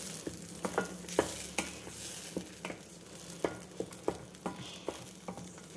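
Wooden spatula stirring thick ground-onion paste in a stainless steel kadai, knocking and scraping against the pan about twice a second at an uneven pace, over a faint sizzle of the paste frying in oil.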